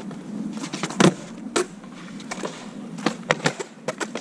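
Skateboard wheels rolling with a steady rumble, broken by sharp clacks of the board striking the ground: one loud clack about a second in and a quick run of clacks about three seconds in.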